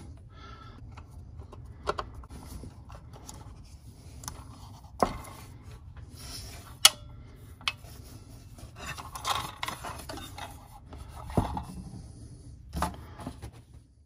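Hands handling the metal cover plate and screws on the back of a Vulcan Autosonic Mark 60 fire alarm bell: scraping and rubbing of metal parts with scattered sharp clicks and taps. The sharpest click, a little after the middle, rings briefly.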